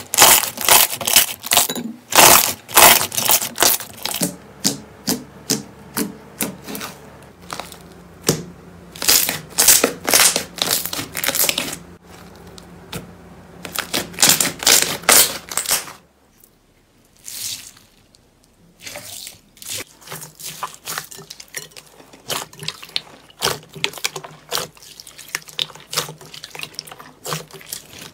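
Hands squishing, pressing and poking slime, giving a fast run of wet clicks, pops and squelches, with a quieter stretch about two-thirds of the way through.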